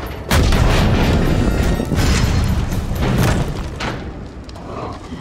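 Film sound effects of a heavy tank crashing down and exploding: a sudden loud boom about a third of a second in, then a long rumbling crash that swells twice and eases off near the end, with film score music over it.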